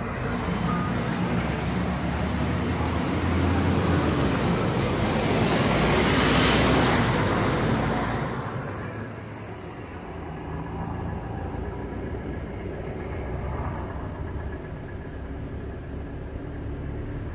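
Street traffic on a busy city avenue. A heavy vehicle's engine and tyre noise swell as it passes close, peaking about six seconds in and fading by eight, and lighter steady traffic noise follows.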